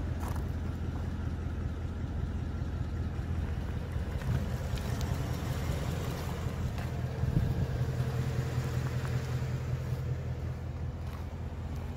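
2019 Ford Mustang Bullitt's 5.0-litre V8 idling steadily, heard from beside the parked car, briefly louder about seven seconds in.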